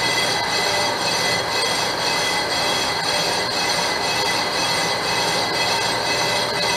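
Metal lathe turning a vented brake rotor, the cutting tool facing the cast-iron braking surface. It makes a steady high-pitched metallic ringing over the running lathe, with a faint regular pulse. The machinist takes this for the tool meeting unevenness in a slightly warped rotor.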